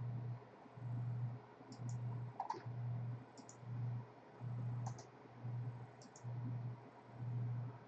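Computer mouse clicking several times, some as quick double-clicks, over a low hum that pulses on and off a little more than once a second.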